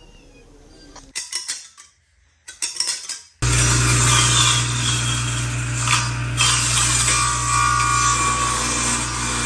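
A few clattering knocks as a workpiece and saw are handled. Then, about a third of the way in, a power saw's motor starts abruptly and runs steadily with a strong low hum.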